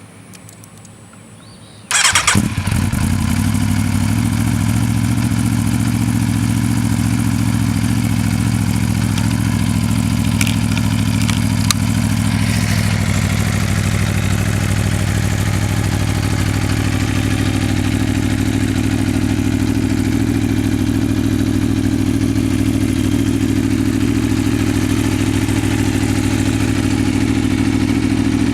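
Aprilia Tuono V4 1100 RR's 1077 cc V4 engine being cold-started: the starter cranks briefly about two seconds in, the engine catches at once, and it then idles steadily.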